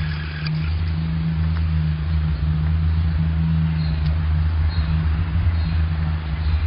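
A loud, low droning sound holding a steady pitch, with a second, higher band above it. It is one of the unexplained 'strange sounds in the sky' that people hear overhead and cannot identify.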